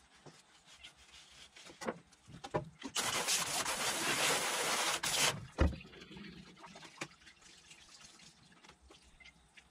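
Garden hose spray nozzle spraying water onto a stainless steel fish-cleaning table for about two seconds, starting about three seconds in. Scattered light clicks and taps of the knife and fish on the steel come before and after it, with a single sharp thump just after the spray stops.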